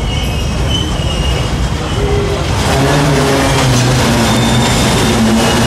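Freight train of flat wagons loaded with lorries rolling past on the rails, a steady heavy rumble that grows louder about two and a half seconds in, joined by a low hum.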